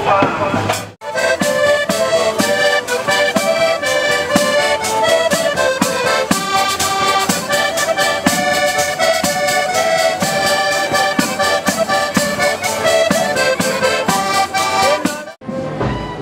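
Accordion playing a lively tune with small guitars in a street band, with a regular strummed beat. The music begins abruptly about a second in, after other band music cuts off, and ends abruptly shortly before the end.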